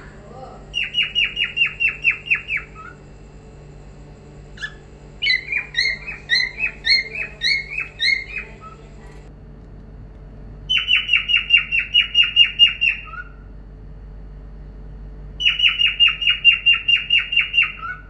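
Cockatiel singing in four phrases of rapid repeated chirps, about five a second. In the second phrase the notes alternate between a higher and a lower pitch.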